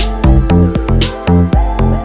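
Electronic background music with a steady beat, heavy bass notes and a repeating synth melody.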